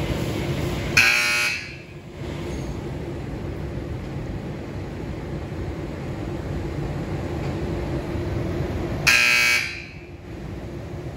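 Two short, loud buzzer tones about eight seconds apart, each lasting about half a second, over a steady low hum in the wash bay.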